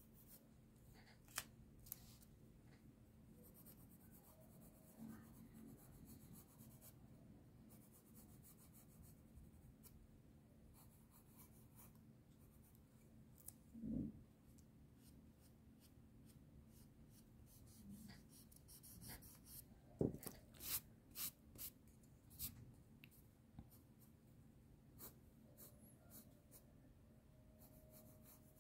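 Graphite pencil scratching faintly on sketchbook paper in short strokes, with a soft thump about halfway through and a quick run of sharper strokes about two-thirds of the way in.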